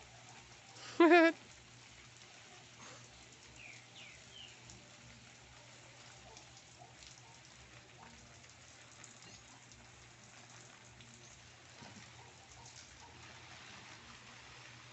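Garden hose spray falling on leaves and a wall, a steady faint patter of water. About a second in, one loud, short, wavering bird call stands out, and a few faint chirps follow a few seconds later.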